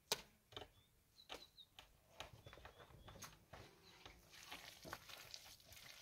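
Loose stones knocking and clicking together as they are handled, with scraping of gravelly soil by hand; one sharp knock just after the start is the loudest. Faint short bird chirps come and go.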